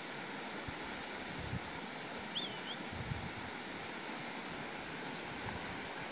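Steady outdoor hiss of wind over the scrub, with a few soft low thumps of wind on the microphone. A single short, wavering bird chirp about two and a half seconds in.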